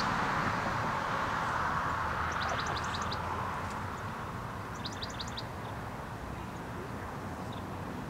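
A car that has just passed on the road fades away as it drives off. Over it, a small bird gives two quick runs of high chirps, about two seconds and five seconds in.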